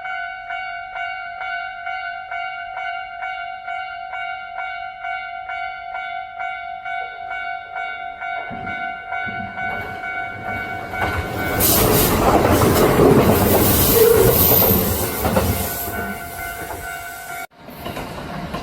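Kintetsu electric train approaching and passing at speed, loudest for a few seconds in the middle, with wheels clacking over rail joints. An electronic warning bell rings in even repeated strokes throughout and sounds over the approach. The sound cuts off abruptly near the end and train noise resumes.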